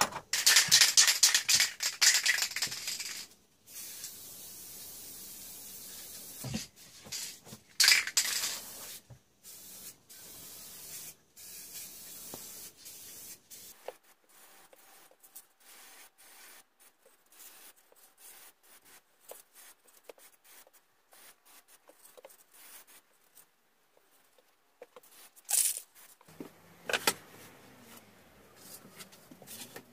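Aerosol spray paint can hissing in several bursts, the longest about three seconds, with scattered light clicks and knocks near the end.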